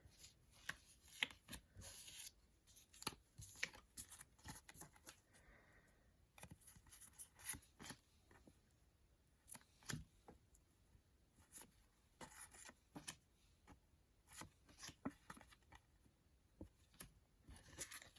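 Faint, irregular rustling and small clicks of sticker packets and stickers and cards being opened and handled.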